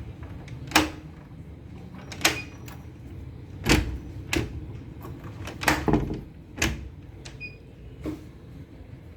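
A series of sharp knocks or clacks, about eight at uneven intervals, some with a brief faint ring after them, over a low steady background noise.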